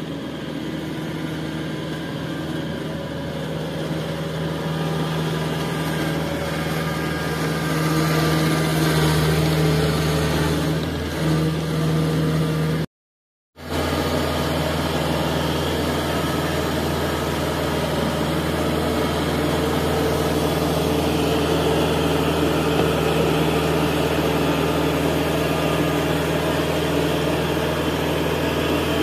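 Kubota DC-68G crawler combine harvester's diesel engine running steadily, a little louder for a few seconds before the middle, as the machine moves on its tracks and onto steel loading ramps. The sound cuts out completely for about half a second near the middle.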